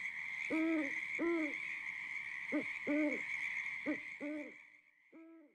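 Owl hooting as a spooky sound effect: about seven short hoots, each rising and falling in pitch, some in quick pairs, over a steady high-pitched background tone, the whole fading out near the end.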